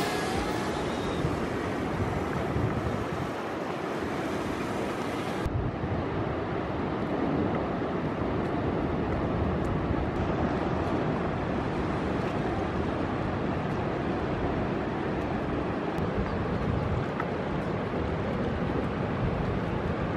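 Ocean surf breaking and washing in steadily, with wind noise on the microphone; the higher hiss drops away suddenly about five seconds in.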